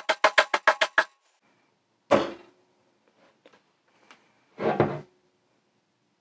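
Pestle pounding hard hackberry seeds in a mortar: rapid ringing knocks, about eight a second, that stop about a second in. Then two louder single knocks with a short ring, about two seconds apart, as the mortar is handled on the counter.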